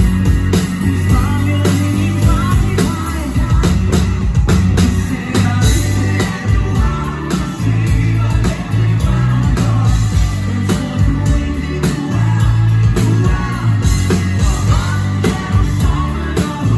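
Live pop-rock band playing loudly: a male voice singing in Danish over a steady drum beat, a heavy bass line, electric guitar and keyboards.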